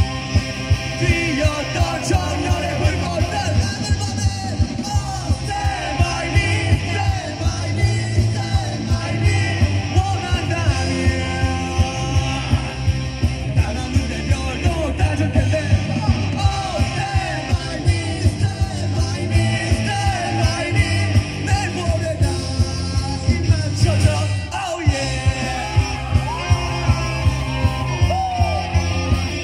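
Live rock band (electric guitars, bass, drums and keyboard) playing an upbeat punk-rock song over a PA, with a male lead singer singing and shouting over a steady driving drum beat. The band cuts out briefly about 25 seconds in, then comes back in.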